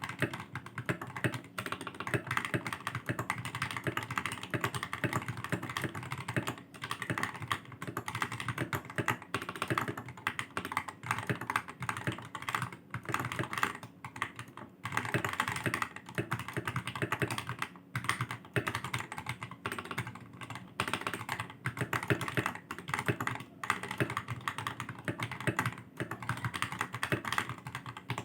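Fast continuous typing on a Royal Kludge G68 mechanical keyboard with lubed Akko Jelly Black linear switches and PBT XDA-profile keycaps, its sound damped by foam and tape mods. There are brief pauses between runs of keystrokes.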